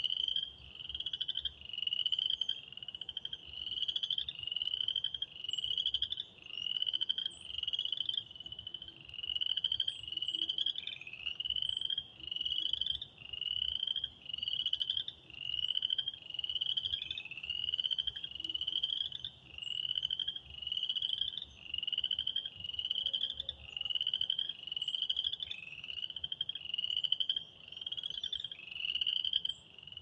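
A frog chorus, led by a near frog giving a rising trill of about a second, repeated about once a second without a break.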